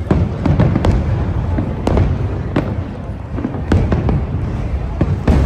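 Fireworks display: a dense, irregular string of bangs, a few each second, over a continuous low rumble.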